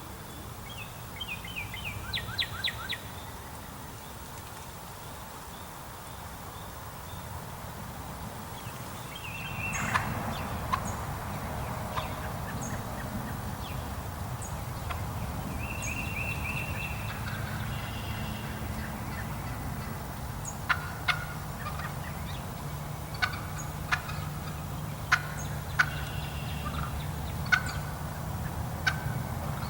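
Wild turkey gobbling: a rapid rattling gobble about two seconds in, with further bursts later. Sharp clicks or clucks come repeatedly in the second half.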